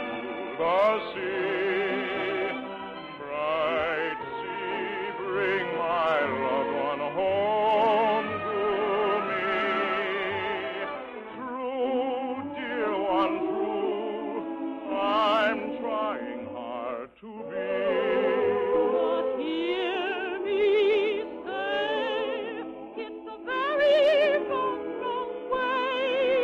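Operetta singing from a 1950 radio broadcast: voices sung with strong vibrato over orchestral accompaniment, with a brief break about two-thirds of the way through.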